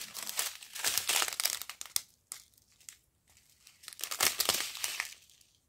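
Small clear plastic zip bags of round diamond-painting drills crinkling as they are handled, in two spells with a quiet pause of about two seconds between them.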